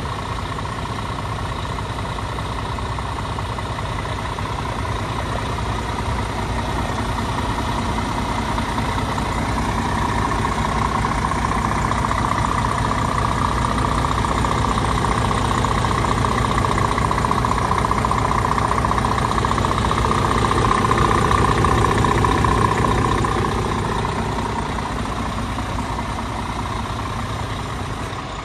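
Scania P370 tipper's diesel engine idling steadily. It grows louder through the middle and eases off again near the end.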